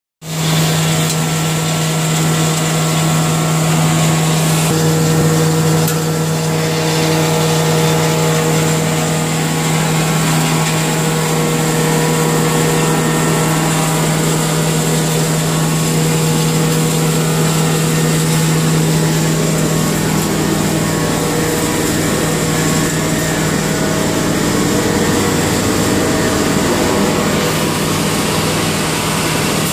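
Wood powder milling machine (wood flour mill) running at speed, grinding wood shavings into powder: a loud, steady mechanical drone with a strong constant low hum.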